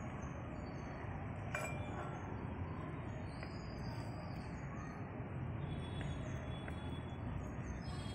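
Spatula scraping and clinking against a black kadai as cooked spinach fry is scooped out into a bowl, with one sharp clink about one and a half seconds in and a few lighter ticks after, over a steady background hiss.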